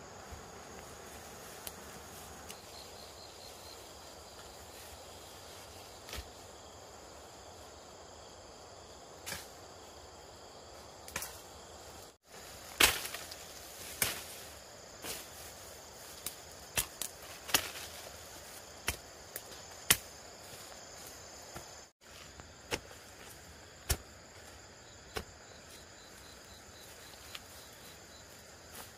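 Steady chirring of insects with thin high tones behind. From about twelve seconds in come more than a dozen sharp knocks and clicks at irregular spacing, and the sound drops out briefly twice.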